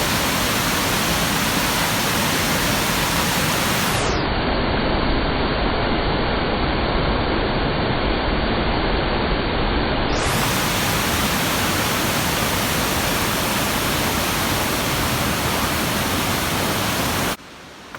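Waterfall rushing steadily, heard close up, a dense even roar of falling water. It cuts off abruptly near the end.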